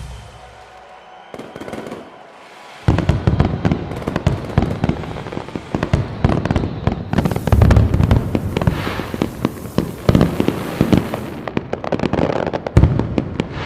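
Fireworks going off: after about three quieter seconds, a sudden, dense run of rapid cracks and bangs that keeps on, with music underneath.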